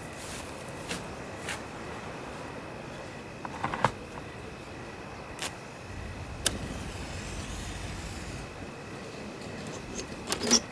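Scattered faint clicks and knocks over a steady low hiss, with a low rumble in the middle and a quick cluster of sharper clicks near the end.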